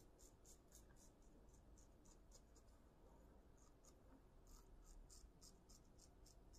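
Safety razor scraping through lathered stubble in short, quick strokes, about three or four a second, with a brief pause a little past the middle. The sound is faint.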